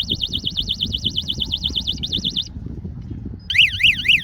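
Tamper-alarm siren warbling rapidly and high-pitched over a low rumble from the gate being forced open. The siren stops about two and a half seconds in, and a second, louder siren with slower up-and-down sweeps starts about a second later.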